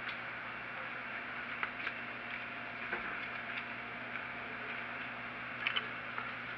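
Steady room hum of a breakfast room with scattered light clicks and taps, the clink of serving utensils and dishes at the buffet.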